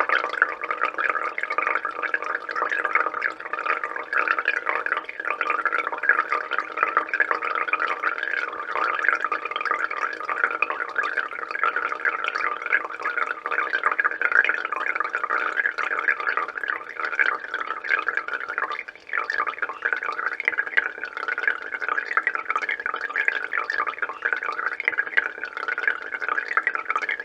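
Water dripping and trickling steadily through a Brita filter cartridge into the jug below, a dense, continuous patter of drops, briefly fainter about two-thirds of the way through.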